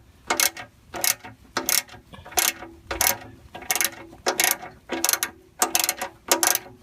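Socket ratchet clicking in short repeated back-strokes, about three every two seconds, as it turns out the oil pan drain bolt.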